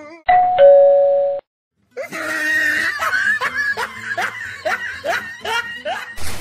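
A two-note descending ding-dong chime that cuts off after about a second. After a brief silence comes a string of short rising sounds, two to three a second, lasting about four seconds.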